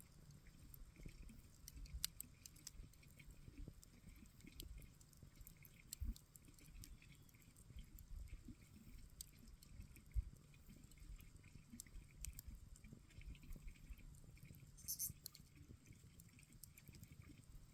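Campfire crackling faintly: scattered small clicks and pops over a soft low rumble of burning wood. There are sharper single pops about two, six and ten seconds in, and a brief hiss about fifteen seconds in.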